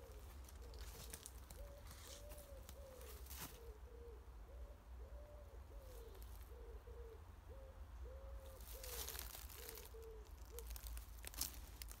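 A pigeon cooing in repeated phrases of low notes, one longer note and several short ones in each phrase, stopping a little over ten seconds in. Footsteps and rustling on the leaf-litter path come and go, loudest near the end.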